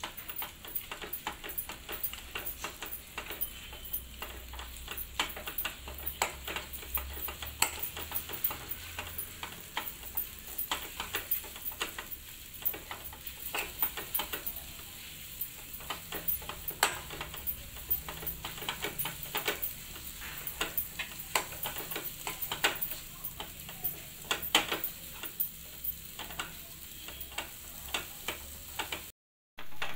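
Steel spoon scraping and tapping against a nonstick kadhai as mashed sweet potato is stirred and roasted in ghee, in quick, uneven clicks, with a faint sizzle underneath.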